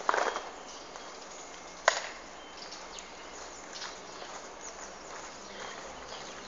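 Marching feet on hard ground: a sharp stamp right at the start and another about two seconds in, then lighter scattered footfalls.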